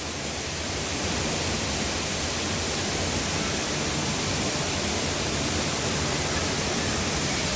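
Hundru Falls: water pouring down the falls, heard from the foot of the falls as a steady, even rush. It grows slightly louder about a second in, then holds.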